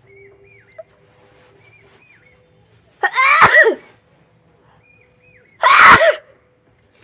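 A woman sneezing twice, loudly, about two and a half seconds apart, her sneezes set off by tickling her nose with a blade of grass.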